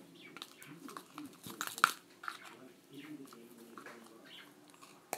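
Plastic spoon stirring sticky, foamy fluffy slime in a plastic bowl: wet squelching with a run of sharp clicks as the spoon knocks the bowl, the loudest near two seconds in.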